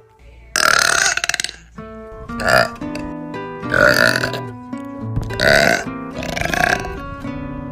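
A girl burping loudly several times. The first burp, about half a second in, is the longest at about a second, and four shorter ones follow roughly every one to one and a half seconds. Background music with plucked notes plays underneath.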